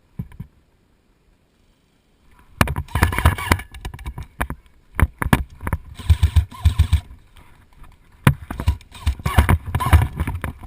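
Irregular knocks, thumps and rustling right at the microphone, as from a camera worn while moving. It starts after a short knock and about two seconds of near quiet.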